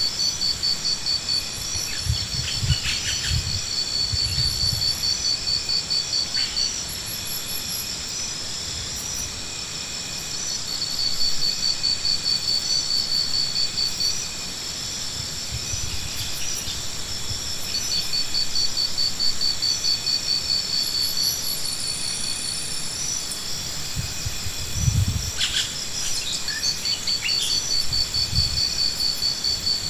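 Insects chirping in rapid, high-pitched pulse trains that run for several seconds and pause, over a steady high insect hum, with a few dull low thumps.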